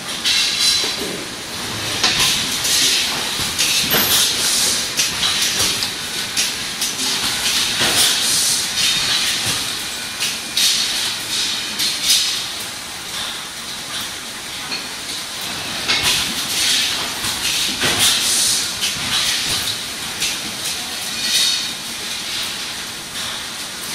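HM 4000S servo cross-web labeller and its packaging line running: steady mechanical clatter with a hiss and sharp clicks recurring every second or two as labels are printed and applied to the passing packs.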